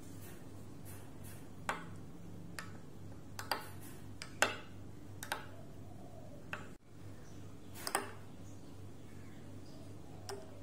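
Metal spoon clinking against a glass mug while stirring a matcha milk drink: about ten light, irregular clinks over a faint steady low hum.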